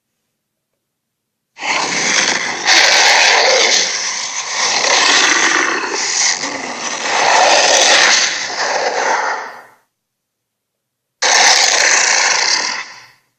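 Cartoon sea monster's roar sound effect, rough and rasping with no clear pitch: one long roar of about eight seconds, then a shorter one of about two seconds near the end, each starting suddenly out of silence.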